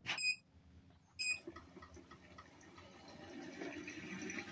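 Two short electronic beeps from a treadmill's control panel, about a second apart, then the treadmill's motor and belt starting up, a faint running noise that slowly grows louder as the belt gathers speed.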